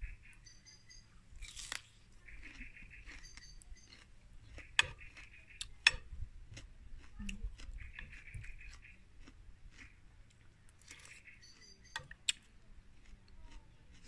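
A small songbird singing short trilled phrases every couple of seconds, with quiet chewing and a few sharp clicks of a metal spoon on a plate, the loudest about five, six and twelve seconds in.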